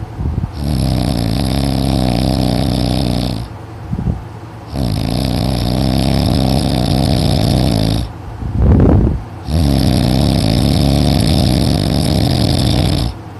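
A teenager's very loud, heavy snoring: three long snores of about three seconds each with short pauses between them, and a brief, sharper breath sound in the second pause.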